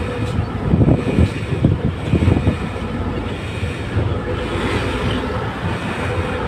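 Inside the cab of a Howo heavy truck under way: the diesel engine running with road and wind noise, an uneven low rumble that swells a few times.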